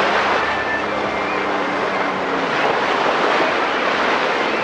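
Jet ski running at cruising speed as it approaches, its engine a steady drone under the hiss of spray and churned water.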